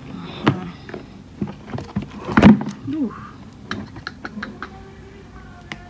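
Handling noise: a series of knocks and thumps as the phone camera and the tablet box are moved about on a wooden table, the loudest thump about two and a half seconds in, followed by lighter taps and clicks.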